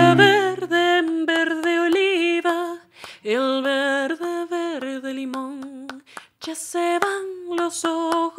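A woman singing a slow Spanish melody unaccompanied, with vibrato, in phrases broken by two short pauses; a sustained keyboard chord dies away in the first second.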